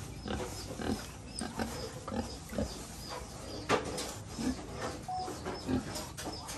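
Several young pigs grunting in a pen, short grunts one after another, with a sharp knock a little past halfway.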